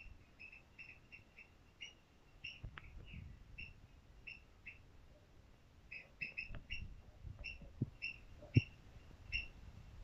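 Short high chirps from a small bird, repeated irregularly one to three times a second, with a few soft knocks, the loudest near the end.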